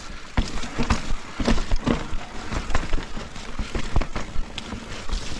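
Mountain bike rattling over a wet, rooty, muddy trail: irregular knocks and clatters from the bike as it hits roots, over a steady rush of tyre noise.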